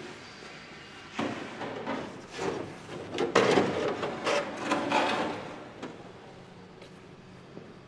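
A hand tool scraping along the edge of a painted car body panel: a run of irregular rasping strokes from about a second in to about five seconds in, loudest in the middle.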